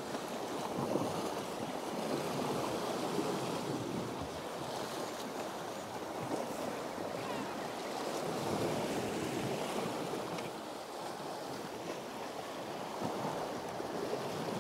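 Sea swell washing and breaking against rocks, swelling and easing every few seconds.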